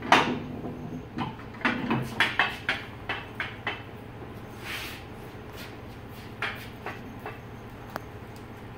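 Aluminium hand truck stacked with test weights being tilted back and wheeled off a steel floor-scale platform: a loud clank at the start, then a run of knocks and rattles over the next few seconds, and a few scattered clicks near the end.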